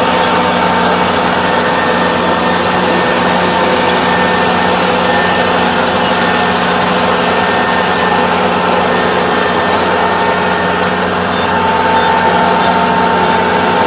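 Engine running steadily at constant speed, a continuous loud drone with a fixed whine.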